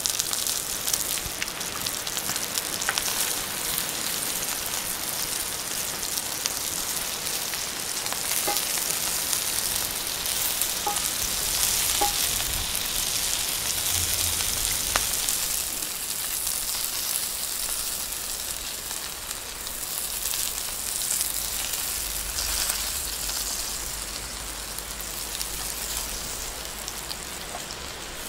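Potatoes and vegetables frying in a cast iron pan, a steady sizzle with a few small clicks as they are stirred with a wooden spatula.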